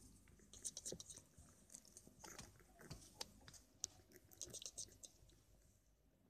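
Faint crackling and sharp little clicks of crumpled paper bedding as a ginger kitten shifts about on it, in short clusters that die away near the end.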